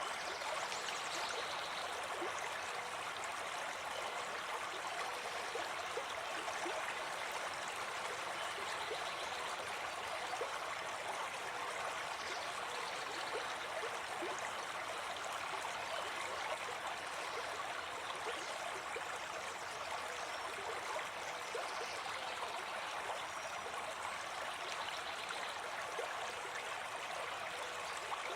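Forest stream: water running and babbling steadily, an even rushing sound with no pauses.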